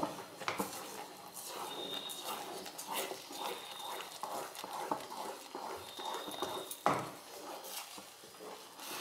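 Wooden spatula stirring thick, nearly set rice phirni in a kadhai: an irregular run of scrapes, squelches and knocks against the pan, with one louder knock about seven seconds in.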